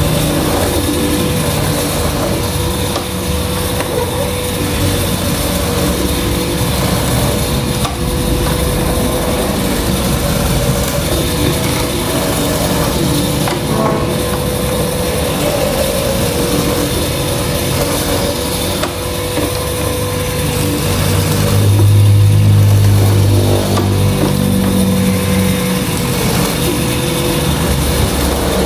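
Hollow-chisel mortising machine running, its electric motor holding a steady tone while the auger and square chisel bore into a wooden board. The cutting grows louder for a few seconds about two-thirds of the way through.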